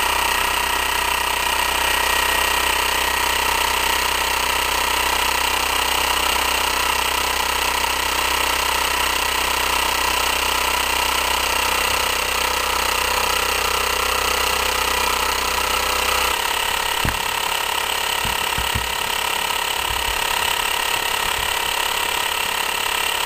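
Homemade 10cc pressurized rhombic-drive Stirling engine and its attached generator running steadily at about 2,100 rpm under electrical load, a continuous mechanical clatter. About 16 seconds in, a low hum underneath drops away.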